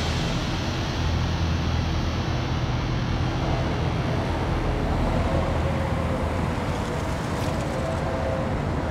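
Toyota Corolla sedan driving slowly: a steady low engine hum with road and tyre noise.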